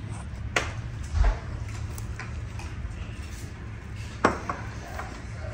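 Crockery clinking and knocking on a wooden table: three sharp clinks, the loudest about a second in with a dull knock under it, and another past the middle, with smaller ticks between. A steady low hum of room noise runs underneath.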